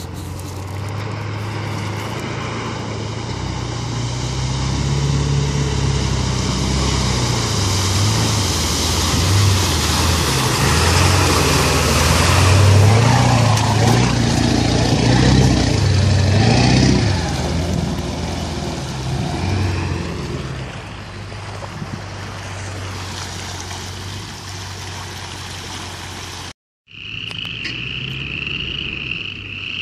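Ford 7.3 Powerstroke turbo-diesel V8 in a lifted F-350 labouring through a flooded dirt road, with water splashing. It grows louder as the truck passes close by, then fades as it moves off. Near the end, after a brief cut, a steady chorus of frogs takes over.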